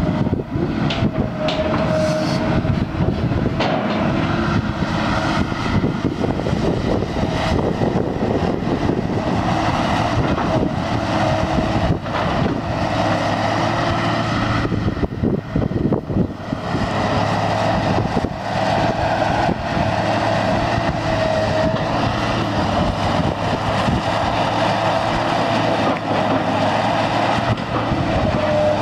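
Link-Belt 240LX long-reach excavator working: its diesel engine runs steadily under load, with a hydraulic whine that swells and fades as the boom moves and the upper structure slews. A few short knocks come through, one a second or two in and more around fifteen to sixteen seconds in.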